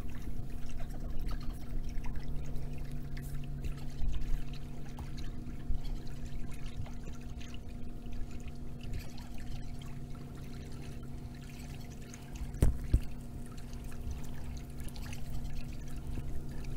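Pool water sloshing and trickling as a hand works underwater, pressing epoxy putty into a crack in the pool's pebble finish. A steady low hum runs underneath, and there is a single sharp knock about three-quarters of the way through.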